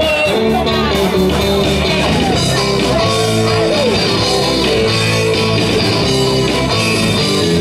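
Live rock band playing: electric guitar over bass and drums, loud and continuous.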